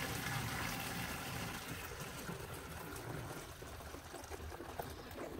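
Liquid humic acid solution poured from a plastic mixing container into a storage container: a steady stream splashing as the container fills, getting a little softer over the last seconds.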